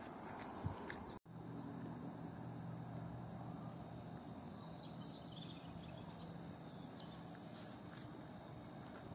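Faint open-air ambience: a low steady hum with scattered short, high chirps. A split-second dropout about a second in.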